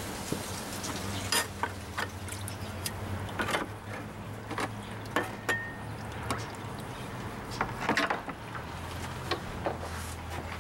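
Water sloshing in a plastic tub as a freshly mixed lye solution is stirred by hand with a stick, with scattered knocks and clicks.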